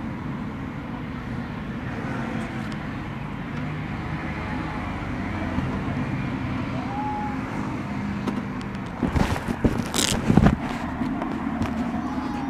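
KTM 690 Duke single-cylinder motorcycle engine idling steadily, running with its exhaust baffle (db-killer) removed. About nine seconds in come a few loud bursts of noise as the bike moves off.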